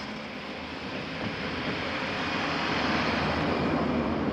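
A train passing: a rushing, rumbling noise that swells, peaks about three seconds in, then holds.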